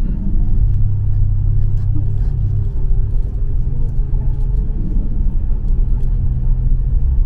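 Tour bus engine running with a steady, loud low rumble.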